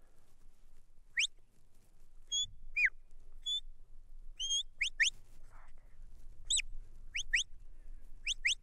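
A handler's sheepdog whistle giving commands to a working border collie: a string of short whistle notes, some rising, some falling and some flat, with several blown in quick succession near the end. These are the signals steering the dog around the sheep during the drive.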